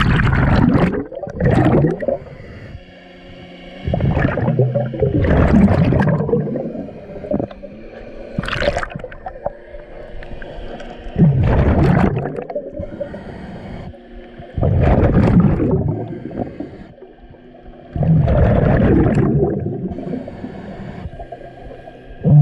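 Scuba regulator breathing underwater: exhaled air bubbles out in loud gurgling surges every three to four seconds, with quieter inhales between.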